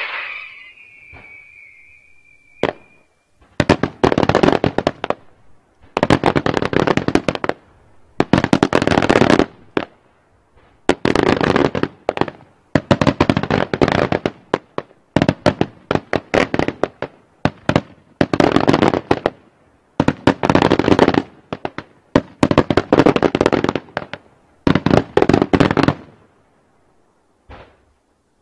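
Daytime aerial fireworks bursting into salvos of rapid, sharp cracking reports: about ten dense volleys, each lasting a second or so, with short pauses between them. A whistle fades out in the first couple of seconds.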